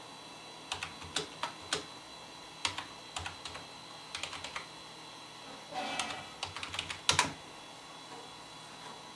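Typing on a computer keyboard: uneven runs of key clicks as a short command is entered, ending with two louder keystrokes about seven seconds in.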